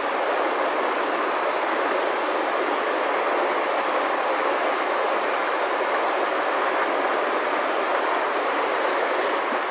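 Steady rushing of river water, an even hiss with no pitch to it, fading out near the end.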